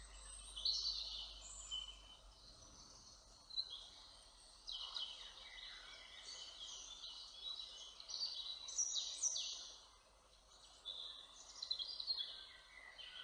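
Woodland birdsong: several songbirds singing short, high phrases, many of them falling sweeps, one after another.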